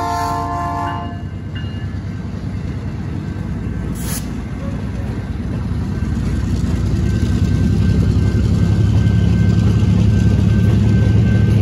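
The last of a locomotive horn blast, which cuts off about a second in, then the diesel rumble of EMD SW1500 switchers and their train rolling over the grade crossing. The engine hum gets louder in the second half as the second locomotive passes close by. A single sharp clank comes about four seconds in.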